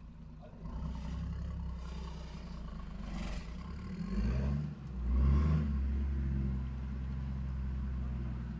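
Toyota Land Cruiser HDJ80's 4.2-litre straight-six turbo-diesel engine pulling up a steep muddy climb, with two short revs about four and five seconds in, the second the loudest, then holding a steady lower note.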